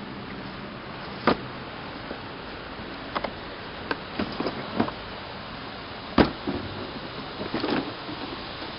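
Scattered sharp knocks and clacks, about a dozen of them, the loudest about six seconds in, over a steady hiss of background noise.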